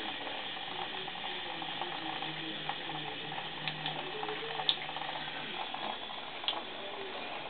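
Bathtub faucet running, a steady hiss of water pouring into the tub, with a few faint ticks.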